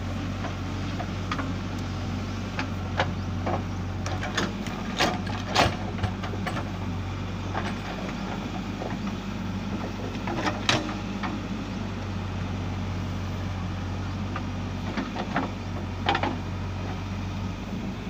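JCB 3DX backhoe loader's diesel engine running steadily while the backhoe digs, with scattered sharp knocks and scrapes from the bucket and arm working in the soil.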